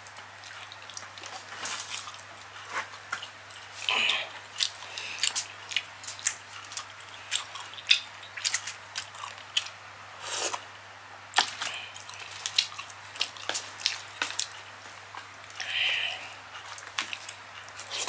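Close-up eating sounds of a person chewing saucy Cajun-style seafood with an open mouth: wet chewing, lip smacks and many small sharp clicks and crunches. About ten seconds in, a longer slurp as broth is sipped from a bowl.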